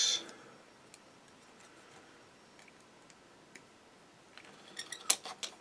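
Light clicks and taps of a plastic model kit fuselage half and a small hobby tool being worked, faint for most of the time, with a cluster of sharper clicks near the end.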